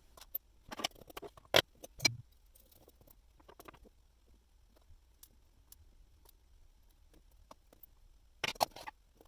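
Small clicks and taps from handling watch parts and small tools at the bench, several sharp ones in the first two seconds and another cluster near the end.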